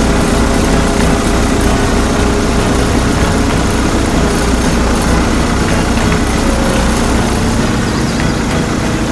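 Heavy truck engine running steadily with a deep low rumble.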